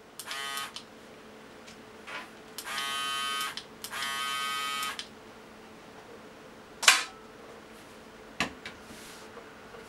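Braun Series 3 electric shaver, running on its newly replaced batteries, switched on in three short runs of a steady buzz, each a second or less. Then a sharp click about seven seconds in, the loudest sound, and a fainter click a second and a half later.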